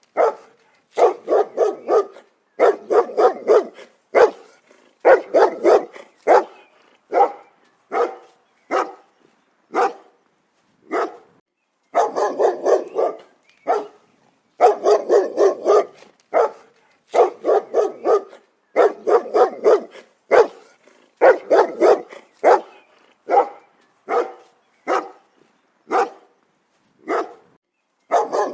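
A dog barking hard and fast, in volleys of several quick barks broken by short pauses, with single barks in between.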